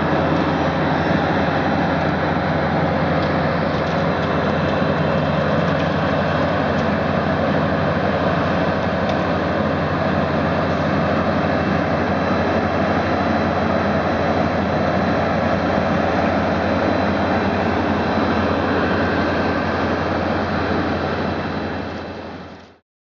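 Heavy road-construction machinery running steadily, an engine drone under a dense mechanical din, fading out near the end.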